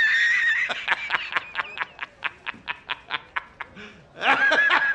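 A man laughing hard: a high wheezing squeal, then a fast run of short laugh pulses, about five a second, fading down, then another high wheeze about four seconds in.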